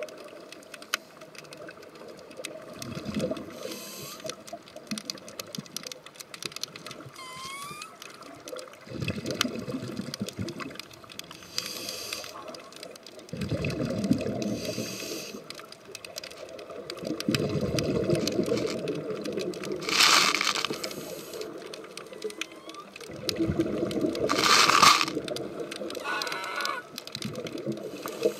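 Scuba divers breathing through their regulators, heard underwater: exhaled air bubbling out in bursts every few seconds, with two louder hisses near the end.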